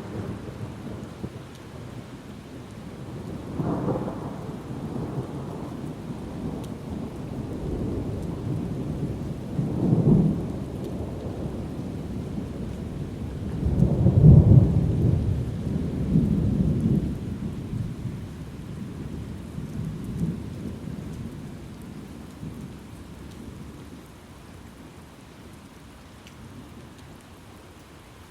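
Thunderstorm: rolling thunder over steady rain, several low rumbles swelling and fading, the loudest about halfway through, then the thunder dies away while the rain keeps falling.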